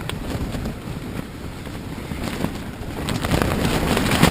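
Strong gusting wind buffeting a tent, with the fabric flapping and rustling over a low wind rumble on the microphone. The gusts pick up again near the end.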